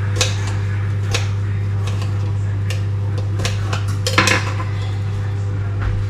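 A kitchen knife slicing cucumber on a chopping board: a series of irregular sharp knocks and clicks, the strongest about four seconds in, over a steady low hum.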